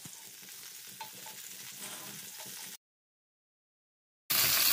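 Melted butter sizzling softly in a frying pan as a wooden spatula stirs it, with small ticks from the stirring. The sound drops out completely for about a second and a half, then comes back much louder near the end.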